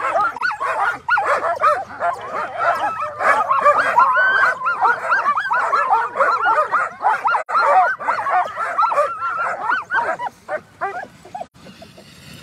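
A crowd of Alaskan husky sled dogs barking and yipping over one another in an excited chorus, with high whines mixed in. This is the clamour of dogs eager to run at a race start. The chorus thins out and falls away near the end.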